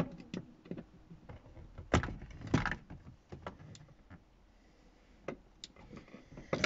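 Scattered clicks and knocks of a screwdriver against the plastic centre console trim as its T20 Torx bolts are undone. There is a quiet stretch about four seconds in.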